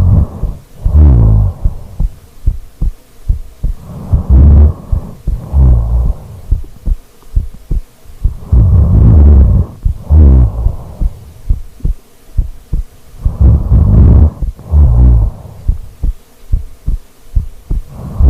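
A person snoring: low, fluttering snores in pairs about a second apart, one pair every four to five seconds, four pairs in all.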